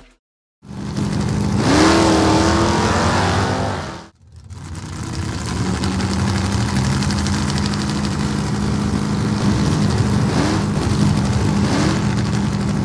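Car engine revving, with a rising pitch about two seconds in, cutting out briefly about four seconds in, then running steadily with two short blips of revs near the end.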